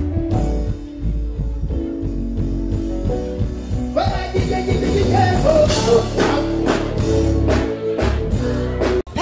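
Live band music with a heavy bass line and sustained instrument tones, with some singing over it; it cuts off abruptly near the end.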